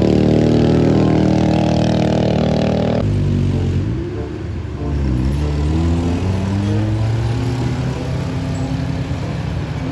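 Small automatic motor scooter engines working hard up a steep hairpin climb. They run steadily at first, then after an abrupt change about three seconds in they rev up and down as the scooters pass.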